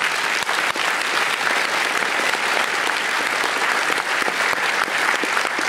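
Audience applauding, thinning into scattered claps near the end.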